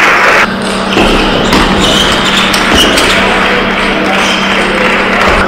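A loud rush of noise cuts off about half a second in. It is followed by scattered taps of a table tennis ball bouncing and settling on the hall floor, a few brief high shoe squeaks, and a steady low hum.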